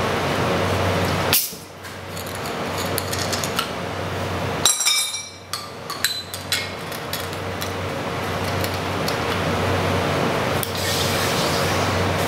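Cream whipper (espuma siphon) being charged with gas cartridges: sharp metallic clicks and clinks as the charger holder is screwed on and off and the canister handled, the loudest about a second and a half in and again near five seconds, over a steady hiss.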